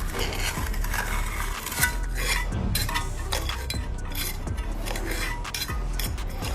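Repeated metallic scraping and clinking of hand tools, many short scrapes and clicks in irregular succession.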